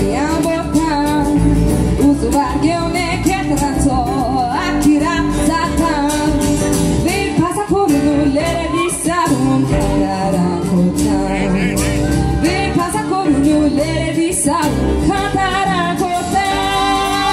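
A woman singing a Konkani song into a microphone over live acoustic guitar accompaniment, her voice holding a long note near the end.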